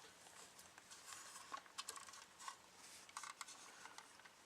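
Faint scattered light clicks and rustles of plastic model-kit parts being handled, against a quiet room.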